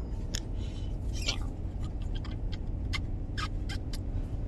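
Steady low rumble of a moving car's road and engine noise, with about six short, sharp, high sounds from a Senegal parrot, three of them close together near the end.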